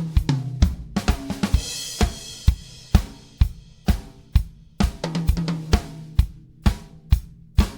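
Sonor ProLite drum kit played in a steady beat of snare, bass drum and hi-hat strokes. A cymbal crash rings out about one and a half seconds in, and low tom notes ring near the start and again about five seconds in.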